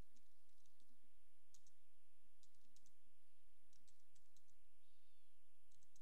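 Computer keyboard keys clicking in short, irregular runs as a command is typed.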